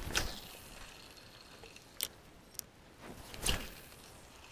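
Spinning rod cast: a quick swish of rod and line at the start. It is followed by small reel-handling sounds: a sharp click about two seconds in, a fainter click just after, and a short rustle about three and a half seconds in.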